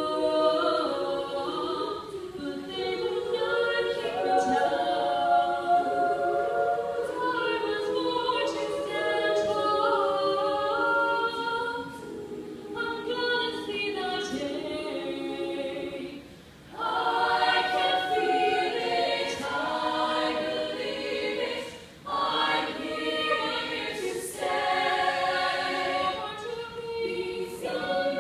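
Choir of young women's voices singing a cappella in several parts, with two short breaks, about 16 and 22 seconds in, before the voices come back in full.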